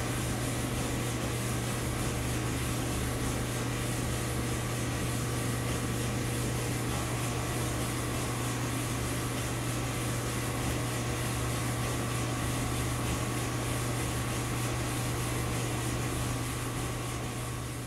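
Samsung clothes dryer running: a steady low hum with an even rushing hiss from the drum motor and blower, fading out near the end. It is a test run on low heat with a newly replaced heating element.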